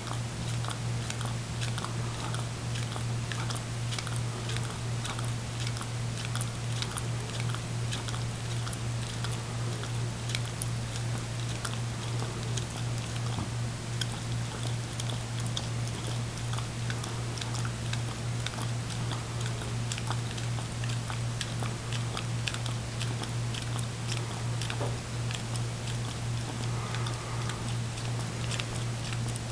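A greyhound licking frozen dog ice cream out of a paper cup: an irregular run of small wet tongue clicks and smacks, several a second, over a steady low hum.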